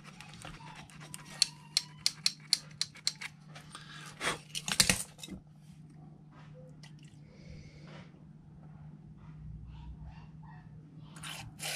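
Small clicks and taps of hands working fiddly plastic carburetor parts with a fine wire, dense in the first half and sparse later. Near the end comes a short loud hiss of WD-40 sprayed through the can's straw into the carburetor's main jet. A steady low hum runs underneath.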